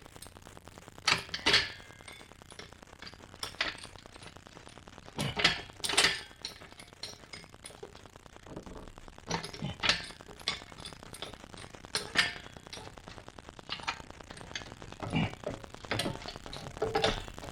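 Irregular metallic clinks and knocks, about a dozen, as tools and a jack are handled and set under the front suspension to load the control arms.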